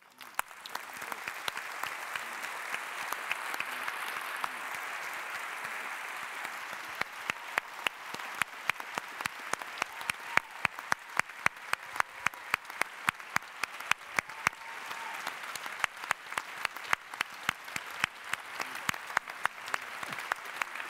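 Audience applause breaking out at once, with individual sharp hand claps close by standing out in a steady rhythm from about seven seconds in.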